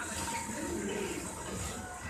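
Fireworks paper-tube making and cutting machine running: a steady mechanical noise with a low hum that swells and fades once, about halfway through.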